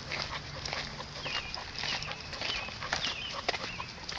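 Short high chirps, repeated every half second to a second, over scattered clicks of footsteps and a dog's collar gear while walking.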